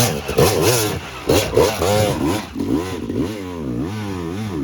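Dirt bike engine revving up and down over and over, its pitch rising and falling about once a second as the throttle is worked on a steep hill.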